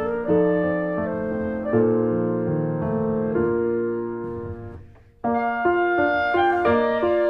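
Background music led by piano, with notes held and changing in sequence; it fades out just before five seconds in, then starts again about a fifth of a second later.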